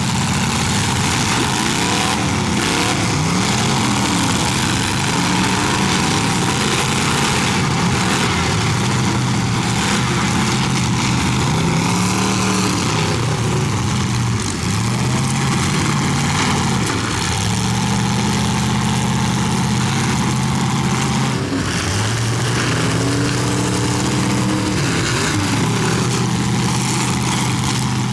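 Several demolition-derby cars' engines revving up and falling back again and again, overlapping one another, with a few scattered knocks of impacts.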